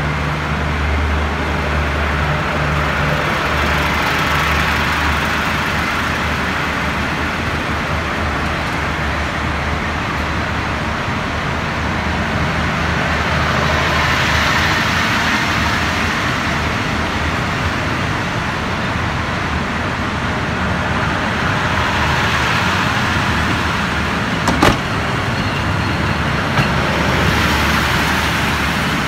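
Passenger coaches of an express train rolling past along the platform as it pulls out of the station: a steady noise of wheels on rails that swells and eases. A low hum fades out over the first few seconds, and a single sharp click comes about 24 seconds in.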